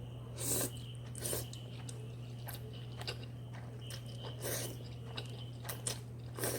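A person chewing and eating spicy instant noodles close to the microphone, with a few short mouth noises spaced out by a second or more, over a steady low hum.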